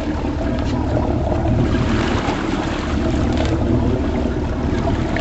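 Boat motor running steadily, a constant drone with water noise underneath.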